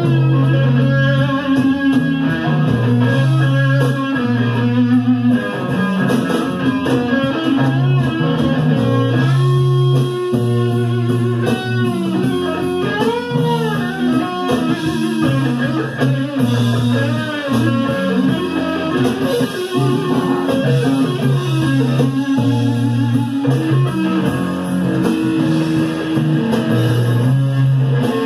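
Live blues-rock band playing an instrumental stretch, an electric lead guitar soloing with bent notes over bass guitar and rhythm guitar. Recorded from the mixing desk, with no vocals.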